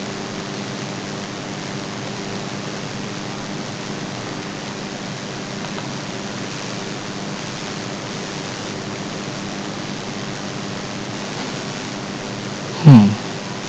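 Steady hiss of a microphone's background noise with a faint low hum. Near the end comes one brief voiced murmur that falls in pitch.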